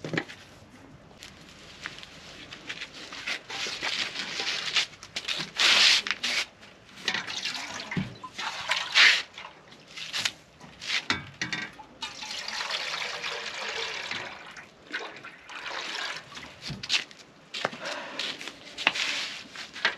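Water poured and splashed out of a metal cooking pot onto bare ground in several uneven bursts, loudest about six and nine seconds in: the water the smoked fish was pre-boiled in being drained off.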